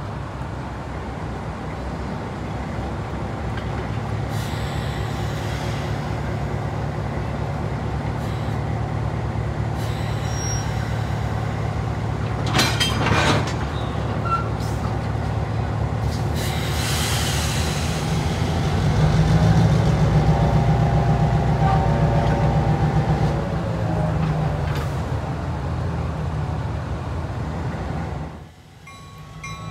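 A railroad locomotive engine running steadily with a low rumble. There are short bursts of air hiss a little before and after the middle. Its engine note rises and then eases about two-thirds through, and the sound drops away abruptly shortly before the end.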